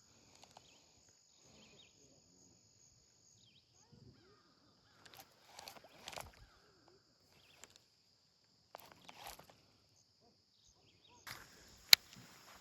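Insects droning steadily at a high pitch, with scattered rustling and handling noises, a sharp click near the end and louder noise coming in just after it.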